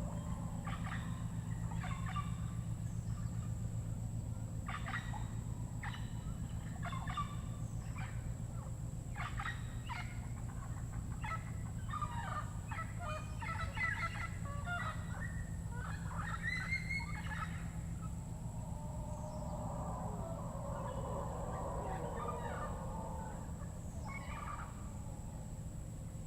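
Tropical rainforest birds calling in repeated runs of short, rough, fowl-like calls, busiest in the first two-thirds. A steady low hum and a thin steady high tone run underneath.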